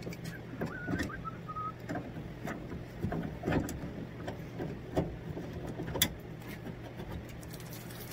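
Irregular metallic clicks and knocks of a ratchet and socket being fitted and worked on the square fasteners of an industrial washer's brass water valve, over a steady low machine hum.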